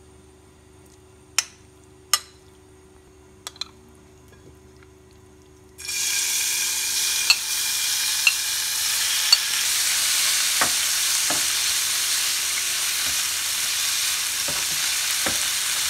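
Marinated chicken strips hitting hot oil in a nonstick frying pan: after a few faint clicks, the pan starts sizzling suddenly about six seconds in and keeps a loud, steady sizzle, with the occasional knock and scrape of a spatula stirring the chicken.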